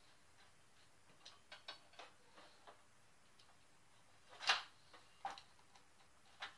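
Light clicks and taps of small screws and metal parts being handled while an angle grinder is put back together on a sheet-metal workbench, with one sharper, louder clack about four and a half seconds in.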